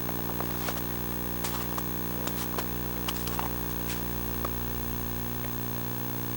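Steady electrical buzz recorded by the Sony Hi8 Handycam, a constant hum with many overtones under the whole recording. A scattering of small clicks comes in the first half.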